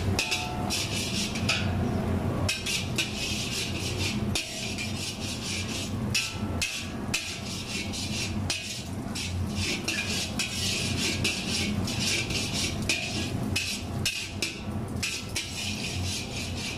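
Shredded cabbage sizzling in hot oil in a large wok, with a metal spatula scraping and clanking against the pan in quick, irregular strokes, over a low steady rumble.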